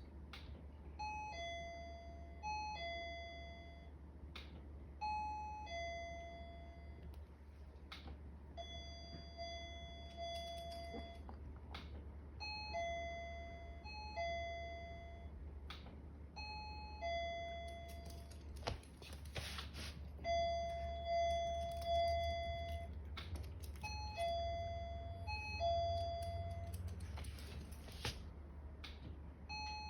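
Japanese intercom doorbell chime ringing over and over, a two-note high-then-low 'pin-pon' repeated every second or two, with a low steady hum underneath.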